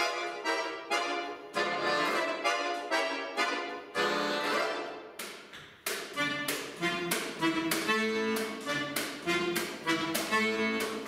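Piano accordion playing solo: dense held chords that die away around five seconds in, then a new passage of short, separately struck chords over low bass notes.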